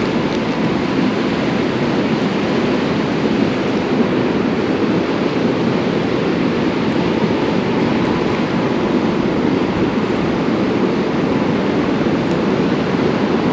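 Steady, loud rush of flowing creek water.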